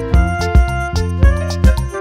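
Background music with a steady drum beat over a bass line and melody.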